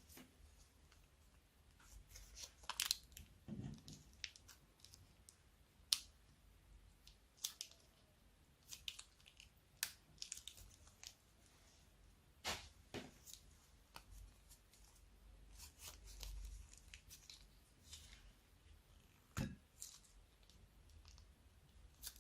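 Slime being pressed and mixed by hand: scattered soft clicks, crackles and little popping snaps, with a few sharper snaps among them and quiet gaps between.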